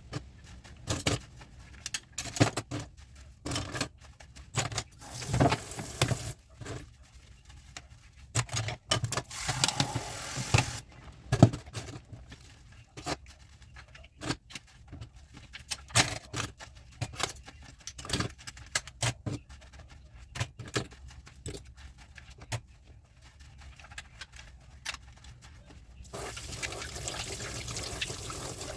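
Dishes and cutlery clinking and knocking against each other as they are washed by hand in a sink, with the tap running water for a few seconds midway and again near the end.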